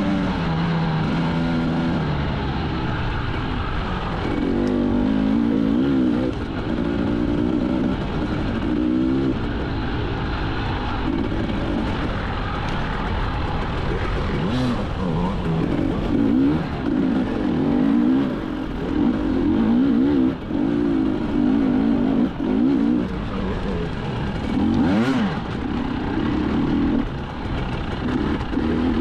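Enduro motorcycle engine ridden off-road, revving up and down over and over, its pitch rising and falling in short swells as the throttle is opened and closed.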